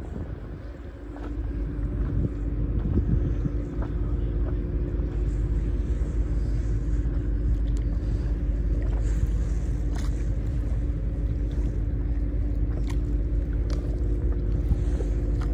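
A motorboat's engine running steadily nearby: a low rumble with a constant hum that holds one pitch, and a few light knocks and splashes of water.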